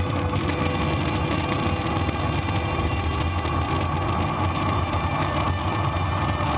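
Longboard wheels rolling fast over asphalt, heard from a camera mounted under the deck: a steady, unbroken rumble of road noise.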